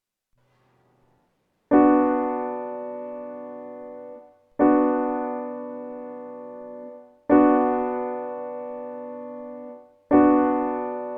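Four piano chords, struck one after another about every two and a half to three seconds. Each one rings out, fades, and is released before the next. Given the demo they are major and minor chords.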